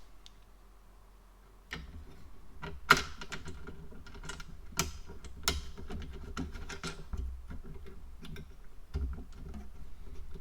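Irregular clicks and light knocks of small hardware being handled and fitted, starting about two seconds in, with one sharper knock near the three-second mark.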